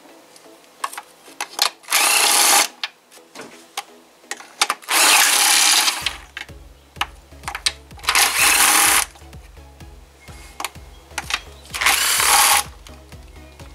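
Cordless drill driving a 12 mm deep socket on an extension, spinning out intake manifold bolts in four short bursts of about a second each, with small clicks and knocks of socket and metal between the bursts.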